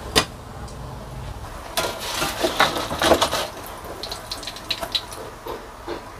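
Metal slotted spatula clinking and scraping against a wok and plate as fried egg is lifted out of the oil: a sharp clink just after the start, a busier stretch of scraping and crackle about two to three and a half seconds in, then scattered light clicks.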